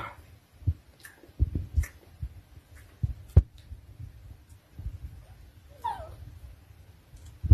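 A dog gives one short whine that falls in pitch about six seconds in, among scattered soft knocks and thumps.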